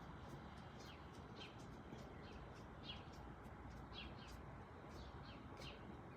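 Small birds chirping faintly, short falling chirps about twice a second, over a low steady background hiss.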